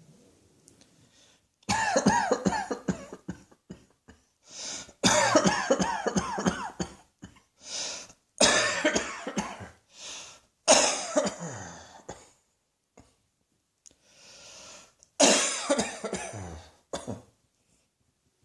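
A person coughing in repeated fits: about five bouts of rapid coughs, each lasting one to two seconds, with short breaths drawn in between. The coughing starts about two seconds in.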